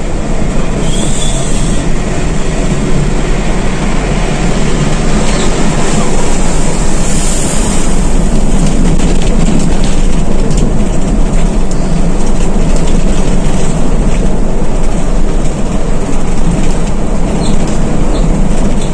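Cabin noise inside an intercity coach driving at high speed: a steady, loud, deep engine drone mixed with road and tyre noise.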